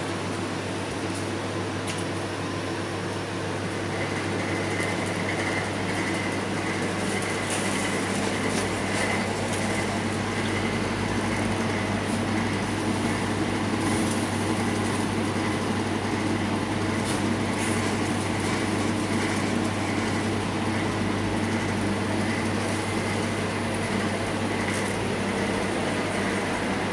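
Steady mechanical hum and whirr of a charcoal basket chicken grill machine running, with a thin high whine joining about four seconds in.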